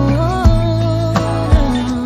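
Background pop song: a singer's melody over bass and a steady beat.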